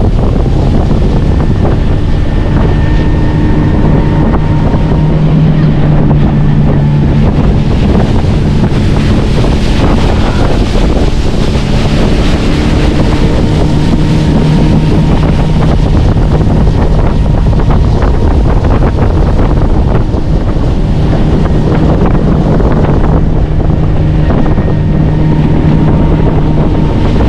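Motorboat engine running at a steady pitch under heavy wind buffeting the microphone.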